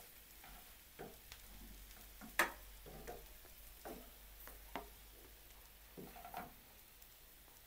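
Wooden spoon scraping and knocking in a frying pan as scrambled eggs with sliced sausage are stirred and scooped out onto a plastic plate, over a faint sizzle. The knocks come irregularly, roughly one a second, the sharpest about two and a half seconds in.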